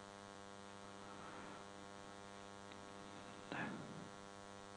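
Steady electrical mains hum at low level, a buzz made of many evenly spaced overtones. A short, soft noise comes about three and a half seconds in.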